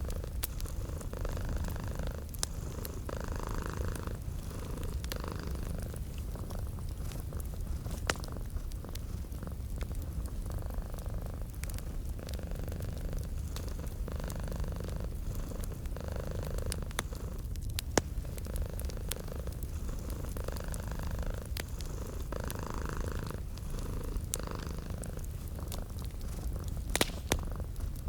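A cat purring steadily, its breath cycles swelling and easing every couple of seconds, over the scattered sharp pops and crackles of a wood fire.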